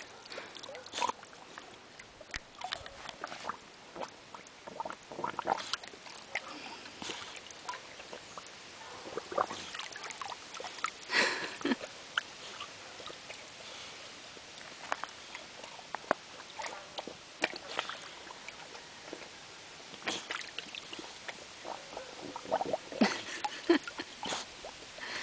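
A pit bull moving through shallow water in a plastic kiddy pool, nosing along the bottom for berries: irregular small splashes and sloshing, with a louder splash about 11 seconds in.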